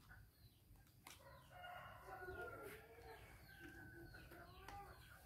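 Faint background fowl: a long, crow-like call with clucking, mixed with short falling chirps of small birds.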